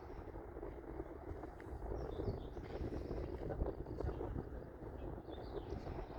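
Steady low rumble of a distant jet airliner's engines, with a few faint bird chirps.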